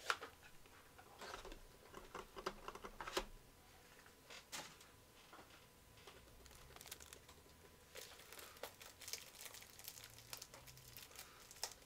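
Faint handling noise: scattered light clicks and crinkles, growing more frequent in the last few seconds.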